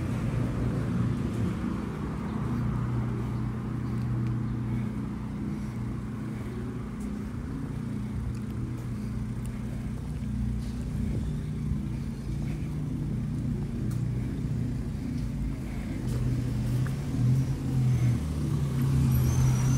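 Street traffic ambience: a motor vehicle engine runs close by with a steady low hum, growing louder in the last few seconds.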